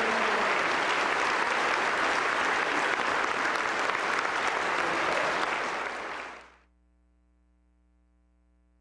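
A large audience applauding steadily, faded out quickly about six and a half seconds in, leaving only a faint hum.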